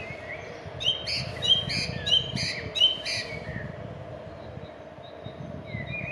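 A songbird singing a quick phrase of about six repeated sharp notes, with softer notes starting again near the end, over a steady low rumble.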